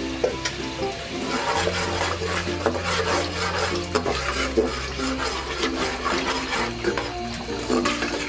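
A spatula stirring and scraping through a pot of simmering milky gravy, with light sizzling, over background music with sustained low notes.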